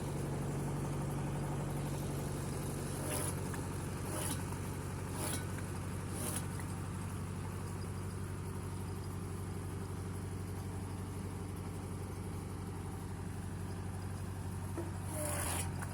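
Motor of a homemade firewood-processing machine running steadily, with short sharp ticks about once a second for a few seconds about three seconds in.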